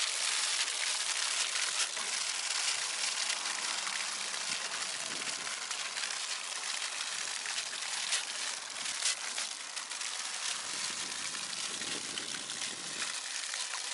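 Mineral spring water pouring from the spouts of a rusted standpipe under its own pressure, with no pump, and splashing onto the rocks and shallow pool below: a steady hiss.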